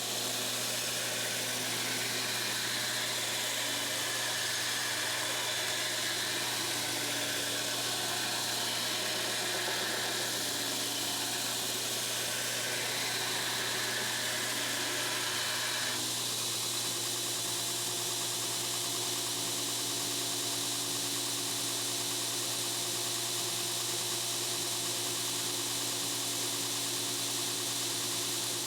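2x72 belt grinder running steadily while a steel blade is ground on the belt: a constant motor hum under a broad grinding hiss. The sound changes character about two-thirds of the way through.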